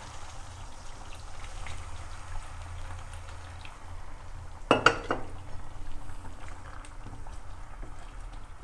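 Chicken curry bubbling and sizzling in a cooking pot. About five seconds in comes one loud metallic clatter of cookware.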